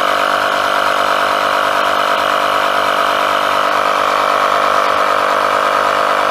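Electric tyre inflator running steadily, pumping air into a new inner tube to inflate the tyre and seat its bead on the rim.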